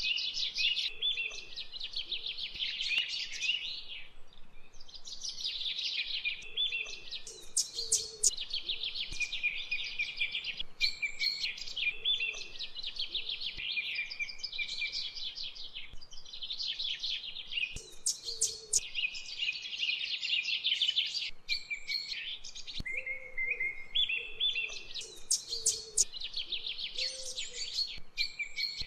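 Birds chirping and singing without a break, a dense chorus of quick high chirps and trills.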